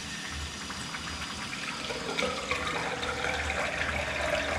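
Water running into a park urinal and draining steadily down it after a stoppage has been cleared, the drain now flowing freely.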